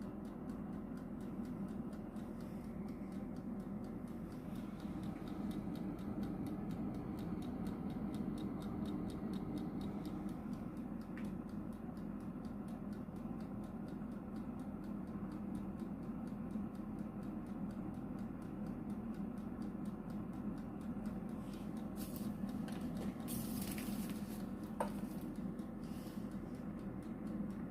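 Low-noise air fryer running with a steady low fan hum. A few brief rustles and a single click come near the end.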